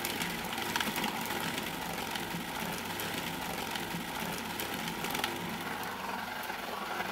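Food processor motor running steadily, its blade churning raw lamb and ice into a smooth, creamy paste.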